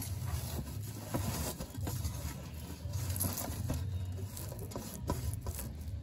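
Fingers crushing steamed red chillies and salt against a stainless steel plate: soft gritty rubbing with scattered light clicks, over a low steady rumble.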